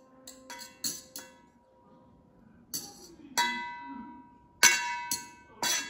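A fork clinking against a stainless steel mixing bowl as a marinade is stirred: about seven uneven taps, the bowl ringing on after each one, the loudest near the end.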